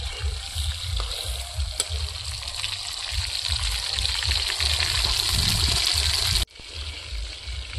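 Fish pieces frying in hot mustard oil in an iron kadhai: a steady sizzle, with a few light spatula clicks, that grows louder and then drops away suddenly about six and a half seconds in. A low rumble runs underneath.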